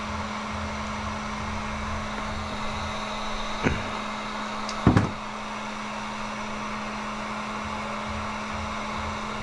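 Wagner Furno 300 electric heat gun running steadily as it warms up, its fan blowing with an even rush of air over a steady low hum. Two sharp clicks about a second apart near the middle stand out as the loudest sounds.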